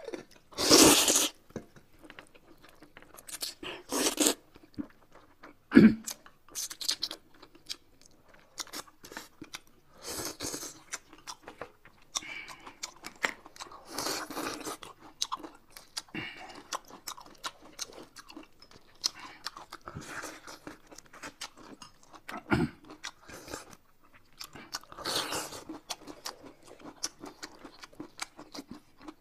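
Close-miked eating: crunchy bites and chewing in irregular bursts, with a couple of sharp clicks.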